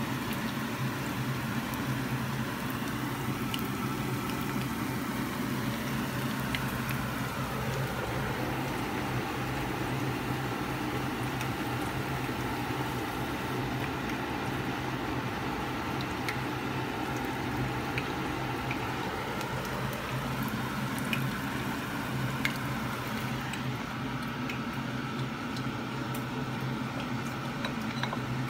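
Battered shrimp sizzling in hot oil in a frying pan, with scattered small pops of the oil over a steady low hum.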